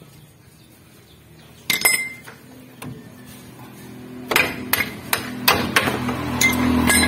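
Hammer blows on the steel front lower suspension arm of a Mitsubishi L300 while freeing its worn, dried-out lower ball joint: one sharp ringing strike a little under two seconds in, then a run of about six strikes, roughly two a second, over the last three seconds.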